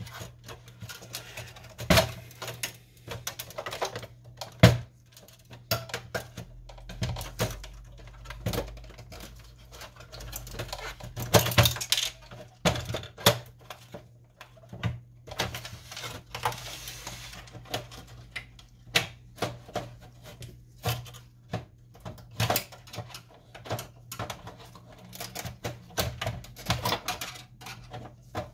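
Irregular clicks, taps and knocks of an Epson WF-2650 inkjet printer's plastic and metal parts being handled and pried apart during disassembly, with a few louder knocks a little under five seconds in and around twelve seconds in.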